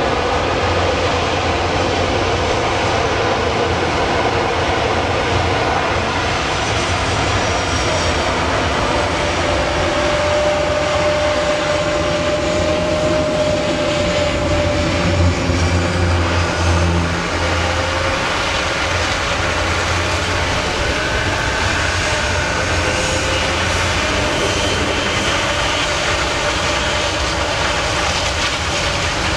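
Airbus A400M Atlas's four TP400 turboprops and eight-bladed propellers running as the aircraft rolls along the runway: a steady, loud propeller and engine drone, briefly a little louder about halfway through.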